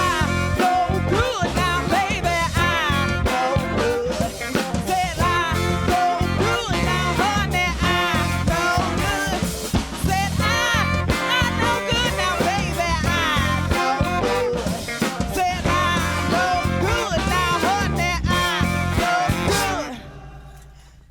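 Live band playing, with drum kit and a melodic line over a steady rhythm. The song ends abruptly near the end and rings out briefly.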